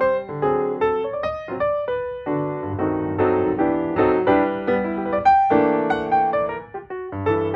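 Background piano music: a melody of struck notes over chords, each note sounding and fading.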